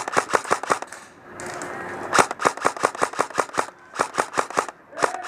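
Airsoft guns firing in several rapid bursts of sharp snapping shots, about eight a second, with short pauses between bursts.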